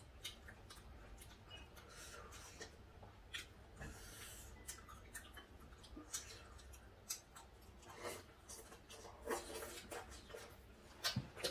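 Quiet table sounds of a meal: scattered soft clicks and taps of chopsticks and spoons on dishes, busier about eight to ten seconds in.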